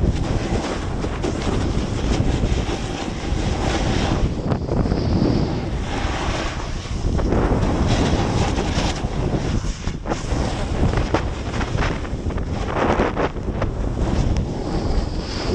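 Wind rushing over an action camera's microphone during a fast descent of a steep snow run, heaviest in the low rumble, with repeated surges and scraping hiss from edges carving snow.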